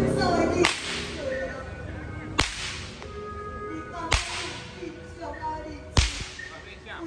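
A long rope whip cracked four times, about one crack every 1.8 seconds, each a sharp snap with a short echo.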